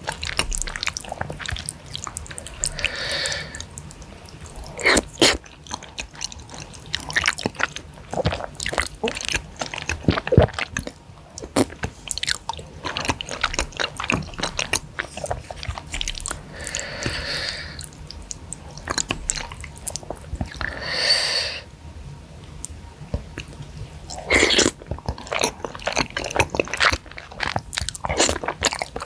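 Close-miked wet chewing and mouth clicks of someone eating spicy flat rice noodles in broth (seblak kwetiau), with a few longer slurps of about a second each.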